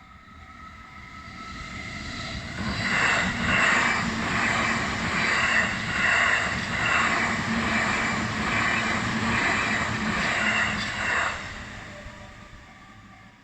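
Electric commuter train on the Chuo Line passing over a level crossing. The rumble builds over about three seconds, the wheels clatter rhythmically over rail joints for about eight seconds, then the sound fades. The crossing's warning bell rings faintly under it at the start and again as the train fades.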